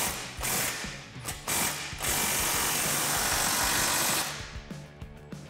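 Cordless electric ratchet spinning a 15 mm socket on an exhaust band-clamp nut: two short bursts, then one steady run of about two seconds that trails off.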